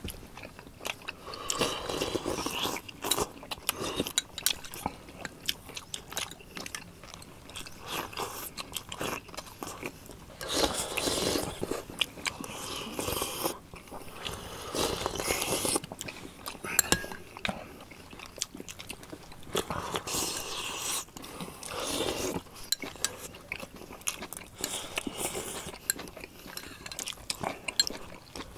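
Close-up eating sounds of several people: chewing and biting boiled organ meats, slurping from small bowls, and spoons clicking against bowls, in irregular bursts.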